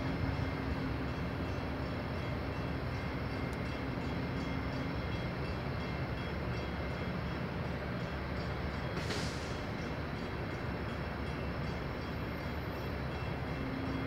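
Steady low rumble of idling car engines, with a faint steady hum that stops about five seconds in and returns near the end. A brief hiss comes about nine seconds in.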